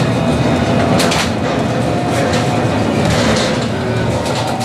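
Alstom Citadis tram running along the track, heard from on board: a steady rumble of wheels on rail with a faint electric motor whine and a few short sharp clicks.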